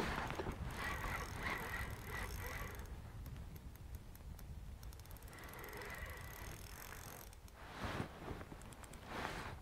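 Spinning reel being cranked, its gears whirring faintly in two spells, about a second in and again around five seconds in. Two soft knocks near the end.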